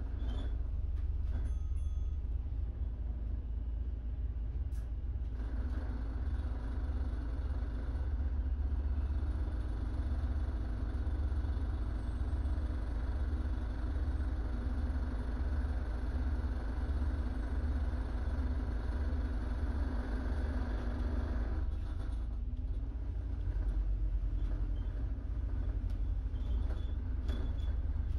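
Double-decker bus heard from its top deck while moving: a steady low engine rumble with road noise, the noise growing louder about five seconds in and dropping back a little past twenty seconds.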